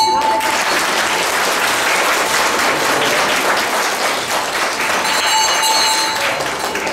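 Audience applauding steadily, with a metal bell ringing over the clapping about five seconds in.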